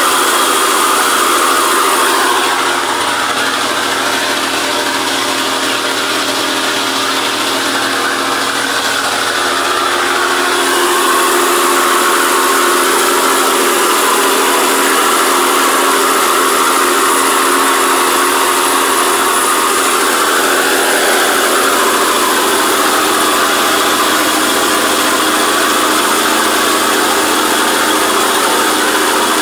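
Semi-truck engine running steadily as the truck wades through deep floodwater, with the water churning and rushing along the side of the cab.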